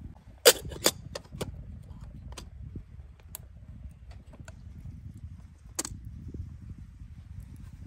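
Irregular sharp clicks and knocks, the loudest two about half a second and a second in and another near six seconds, over a steady low rumble.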